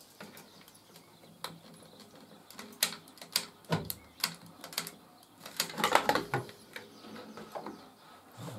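Scattered light clicks and taps, with a denser patch of rustling and handling about six seconds in, as a hot glue gun and small parts are worked into a scroll saw's arm.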